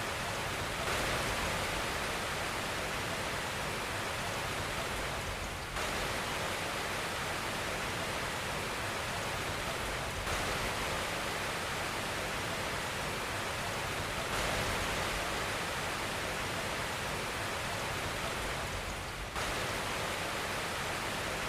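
Steady white-noise hiss, full and even across the range, played as a baby sleep aid. Small jumps in level come about every four to five seconds.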